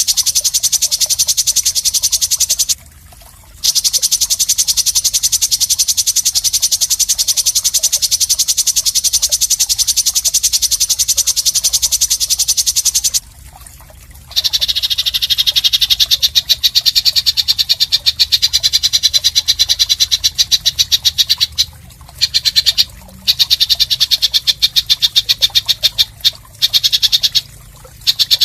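Songbird giving a long, very fast rasping buzz trill, the harsh 'mbeset' fill used in tutor recordings for competition birds. It comes in long phrases with short breaks, and the buzz drops lower in pitch about halfway through, then goes on in shorter bursts with several brief pauses near the end.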